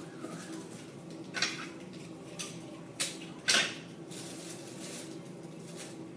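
Handling noises: four short knocks and rustles spread over a few seconds, the last the longest, as the heater materials are moved about.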